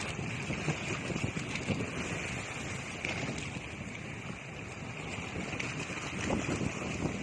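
Wind buffeting the microphone in uneven gusts over a steady outdoor hiss.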